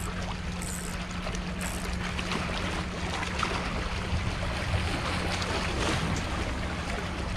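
Sea water sloshing against breakwater rocks, with wind noise and a steady low hum underneath. A small hooked sea bream splashes at the surface as it is reeled in and lifted out of the water.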